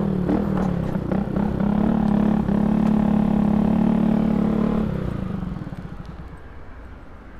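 Honda CG 125 Today's single-cylinder four-stroke motorcycle engine running steadily under way, then easing off about five seconds in and dropping to a much quieter, pulsing idle as the bike slows.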